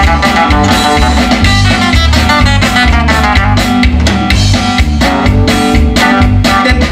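Live band music: an instrumental passage led by guitar over bass and drum kit, with a steady beat.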